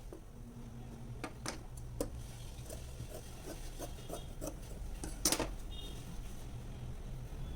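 Sewing machine at work on fabric: a short run of quick, even needle ticks, with sharp clicks and taps from handling the machine and cloth, the loudest a little past halfway, over a low steady hum.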